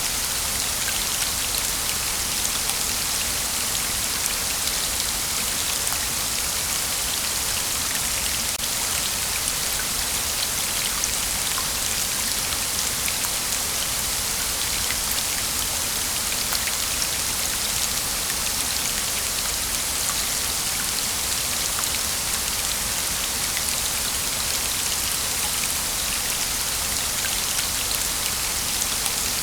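Waterfall: falling water making a steady, bright hiss with a fine patter of droplets through it.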